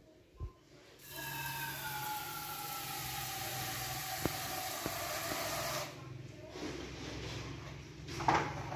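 Kitchen tap water running into a nonstick wok at the sink, a steady splashing hiss with a faint tone that slowly falls in pitch, for about five seconds before the tap is shut off. Near the end a sharp clunk as the wok is put down.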